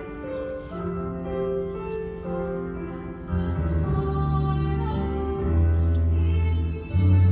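Musical-theatre ballad accompaniment with piano and held notes moving through a slow melody. A deep bass line enters about three seconds in, and the music grows louder.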